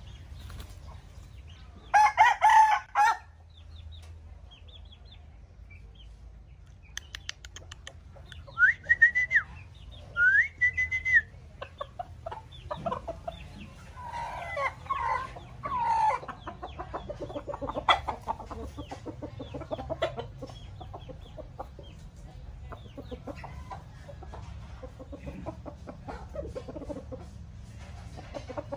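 Burmese-Malay cross gamecocks clucking and calling. There is a loud crowing-type call about two seconds in, two short high whistled calls near the middle, and a longer call around the halfway point, followed by scattered clucks.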